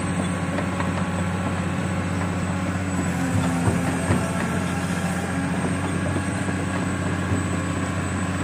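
Caterpillar 365C crawler excavator's 400 hp diesel engine running steadily under hydraulic work, a constant low hum as the boom and bucket move. A few light knocks come a little before the middle.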